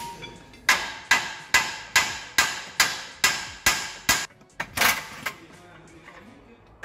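Steady hammer blows on the steel front suspension of a BMW E46, about nine sharp ringing strikes at roughly two a second, then a louder cluster of hits about five seconds in before the hammering stops.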